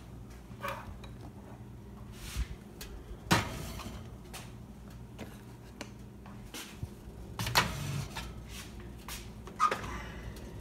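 Occasional kitchen knocks and clanks, like pans and cupboard doors being handled, over a low steady hum; the loudest knock comes about three seconds in.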